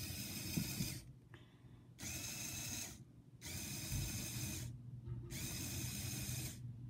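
Small Lego Technic electric motor whirring as it drives the helicopter model's plastic gears and spinning rotor. The whirr cuts out briefly four times as the lever switch is worked, then starts again.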